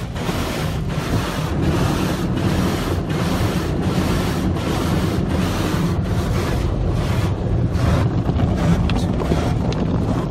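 Rotating cloth brushes and water spray of an Autec car wash scrubbing over the car, heard from inside the cabin: a loud rushing swish that pulses about three times every two seconds. About seven seconds in, the hiss eases to a duller rush.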